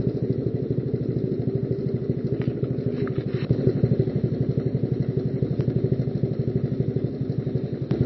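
Small motorcycle engine idling with a steady, even beat of exhaust pulses. A few faint clicks come a third of the way in and again later.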